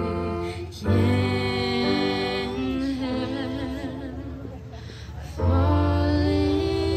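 A woman singing long held notes with vibrato into a microphone, accompanied by an electronic keyboard. Deep keyboard chords come in about a second in and again at about five and a half seconds.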